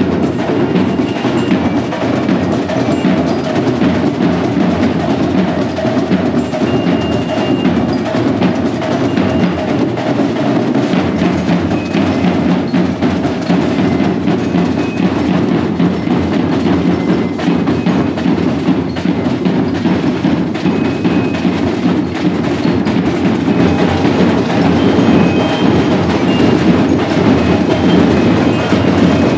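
Marching band playing: a dense, steady wash of drumming with short, high bell notes ringing out here and there.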